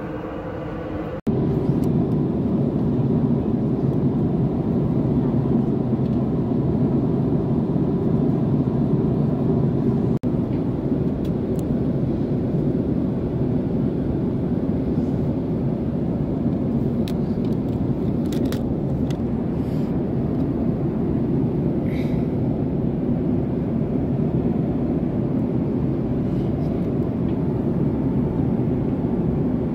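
Steady drone of a Boeing 767-400ER cabin at cruise: engine and airflow noise, low and constant, heard from an economy seat. A few faint clicks come through near the middle.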